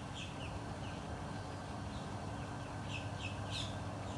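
A small bird chirping a quick run of short, repeated high notes, with a few louder chirps about three seconds in, over steady outdoor background noise.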